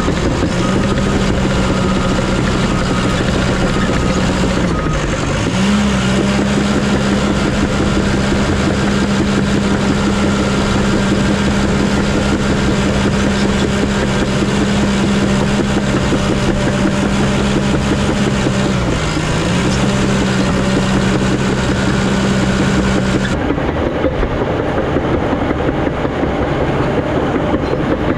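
Diesel engine of a piece of earthmoving equipment running steadily at working speed. Its pitch sags briefly twice, about five and nineteen seconds in, as the machine takes a load, then recovers. Near the end the sound turns duller.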